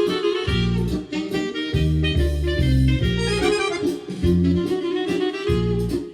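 Instrumental mazurka in the Italian ballroom (liscio) style, in three-time: a melody line over a bass accompaniment that plays regularly spaced notes.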